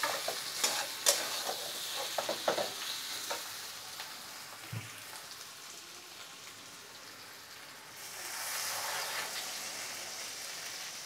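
Metal spatula scraping and stirring spiced oysters and potatoes in a kadhai over a steady frying sizzle, with sharp clicks of the spatula on the pan in the first few seconds. About eight seconds in, water is poured into the hot pan and the hiss grows louder.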